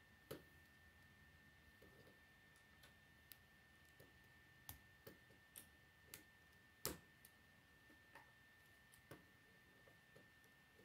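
Plastic K'nex rods and connectors clicking and snapping together by hand: about a dozen scattered light clicks, the sharpest about seven seconds in. A faint steady high whine runs underneath.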